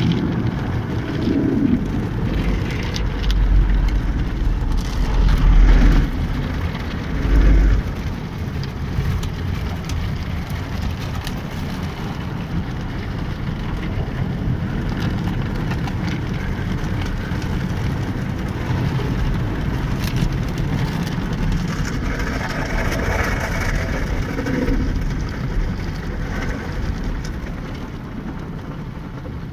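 Automatic tunnel car wash heard from inside the car: rotating brushes scrubbing and water spraying over the windscreen and body, a steady rain-like noise. Heavier low rumbles come and go in the first several seconds.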